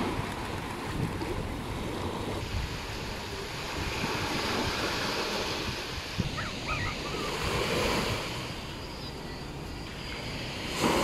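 Small waves washing in on a sandy beach, swelling and easing, with wind rumbling on the microphone.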